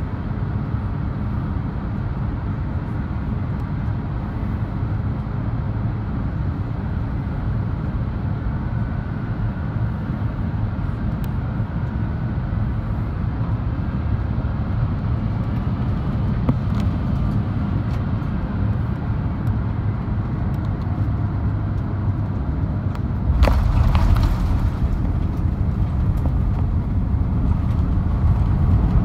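Cabin noise by the wing of an Airbus A350-900: a steady rumble of airflow and its Rolls-Royce Trent XWB engines on final approach. About 23 seconds in, the main wheels touch down with a jolt, and the rumble of the tyres rolling on the runway takes over, growing louder toward the end.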